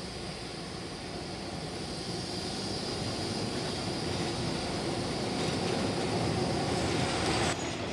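Yellow articulated Stadler Tango tram passing close by: a steady rumble of wheels on rails with a faint high whine. It grows slightly louder as it goes by, then drops off suddenly near the end.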